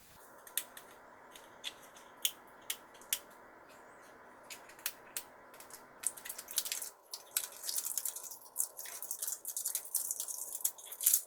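Small plastic toy capsule and its wrapper being handled and opened by hand: scattered sharp clicks and taps, then from about halfway a dense crinkling of a plastic or foil wrapper with more clicks.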